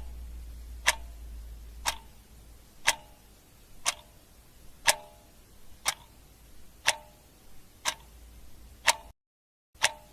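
Clock ticking sound effect, one sharp tick each second, timing the search round as a countdown. The ticking breaks off for a moment of dead silence near the end.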